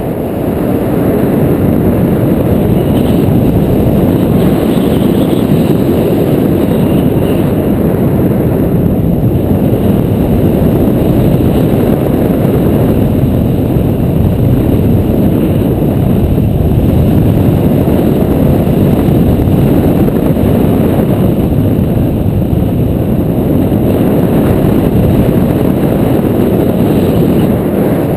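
Steady wind rushing over an action camera's microphone held out on a pole during a tandem paraglider flight, a dense low rumble with no pauses.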